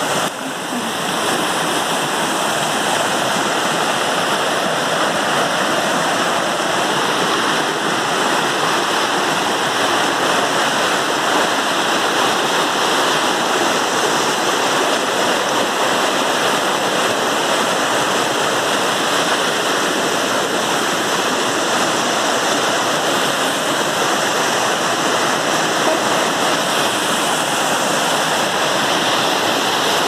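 Small waterfall cascading over smooth rock slabs into a stream: a loud, steady rush of water.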